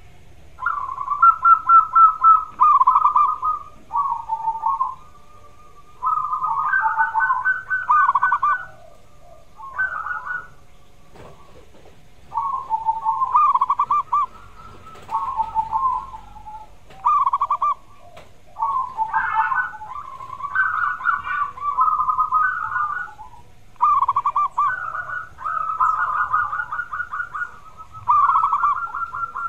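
Zebra dove (perkutut) cooing: phrase after phrase of rapid, trilled coos, each lasting one to two seconds, with short pauses between them.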